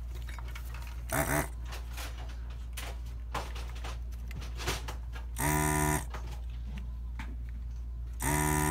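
Hakko FR-301 desoldering gun's built-in vacuum pump buzzing in short bursts as the trigger is pulled to suck molten solder off the power-supply board's joints. There are two half-second buzzes, one a little past the middle and one at the end, over a steady low hum.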